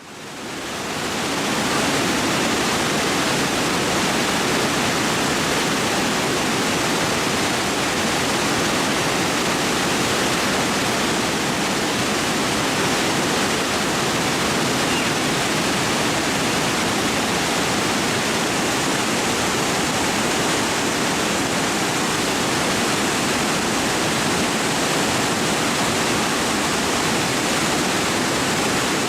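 Steady rush of a waterfall's falling water, fading in over the first second or two and then holding even.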